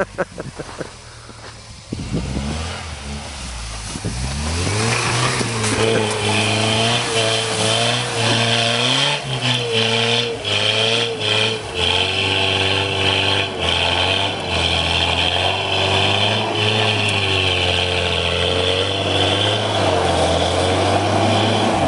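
Toyota 4x4's engine revving hard. It is lower for the first few seconds, climbs about four seconds in, and is then held at high revs with its pitch wavering up and down.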